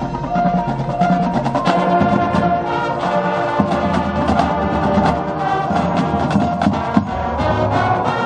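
High school marching band playing its field show: brass holding sustained chords over a drumline playing many sharp, rapid strikes.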